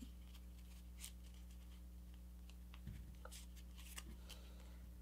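Faint rustles and soft crackles of a folded paper airplane being handled, as a flap is worked into a pocket in its body, over a steady low hum.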